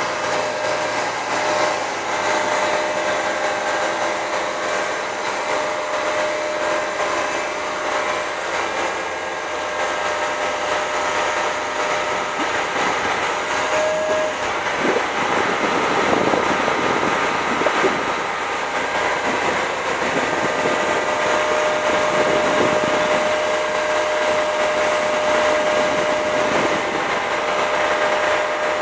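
MAN TGA truck-mounted CIFA concrete pump running: a steady mechanical drone with a constant high whine, growing a little louder and rougher about halfway through.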